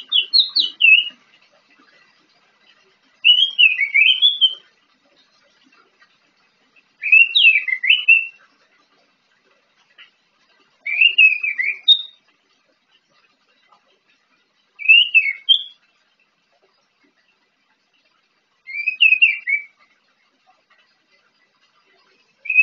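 Orange-headed thrush singing from its cage, practising its song: short phrases of quick, clear whistled notes sliding up and down. A phrase comes about every four seconds and lasts about a second, with silence between.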